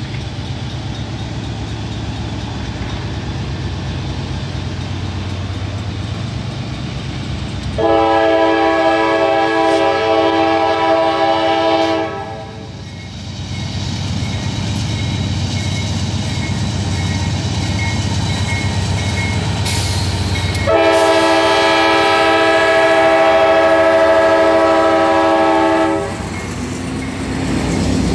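Norfolk Southern freight train's GE diesel locomotives approaching, engines rumbling, with two long horn blasts of about four and five seconds, starting about eight and twenty-one seconds in; the engines grow louder near the end as the lead units pass close by.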